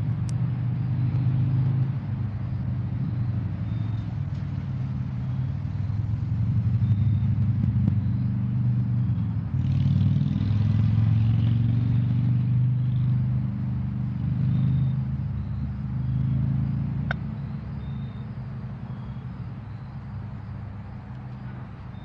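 Norfolk Southern diesel locomotives passing slowly at close range, their engines making a steady low drone. The drone fades over the last few seconds as they move off, with a single sharp click partway through.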